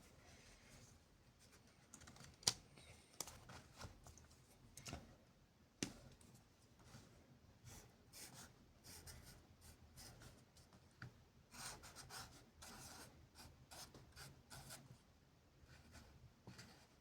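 Near silence with faint scattered clicks and rustling, and two sharper clicks about two and a half and six seconds in.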